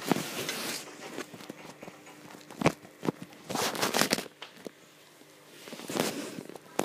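Handling noise: rustles and a few sharp knocks as the phone is moved about and brushed against.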